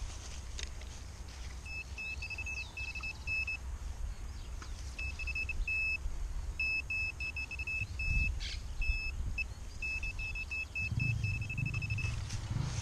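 Handheld metal-detecting pinpointer beeping as it is probed into a dug soil plug: runs of short high beeps that now and then hold into a steady tone, signalling metal close by. A low rumble sits under it, growing near the end.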